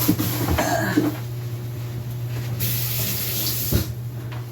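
Kitchen tap running into the sink, cutting off with a knock near the end.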